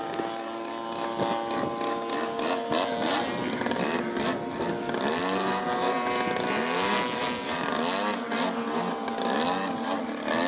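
Model aircraft engine turning a CNC-cut wooden propeller. The engine note is steady at first, then from about halfway the pitch swings up and down again and again.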